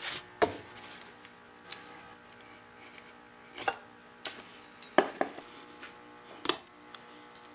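Sparse, light clicks and knocks of a metal combination square and hand tools being handled and set against veneer strips on a wooden workbench, about eight irregular taps.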